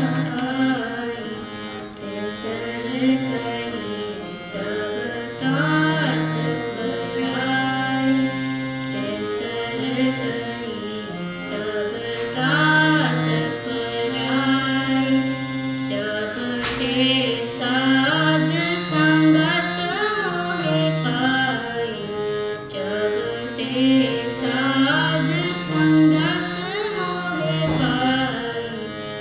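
Kirtan: a woman singing a Sikh shabad in a gliding melodic line, accompanied by a harmonium holding steady chords beneath her voice.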